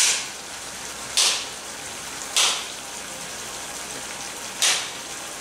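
A knife slicing through soft cooked besan gatta rolls on a ceramic plate: four short scraping cuts about a second apart, over a steady background hiss.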